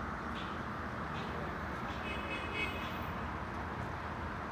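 Steady outdoor background noise, with a short high-pitched tone a little past the middle.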